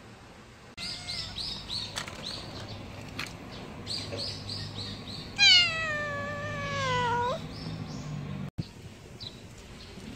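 A black-and-white cat meowing: one long, loud meow falling in pitch over about two seconds, with a short lift at the end, about halfway through. Rapid high chirps repeat several times a second before and after it.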